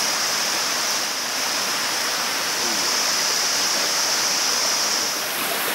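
Forest ambience: a steady rushing noise like running water, with a high, even drone over it that cuts off about five seconds in.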